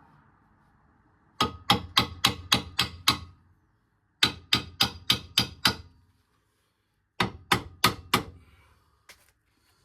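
Hammer striking metal in three quick runs of blows, about seven, seven, then four, roughly four a second, each blow ringing, during work on a car's front wishbone and lower ball joint.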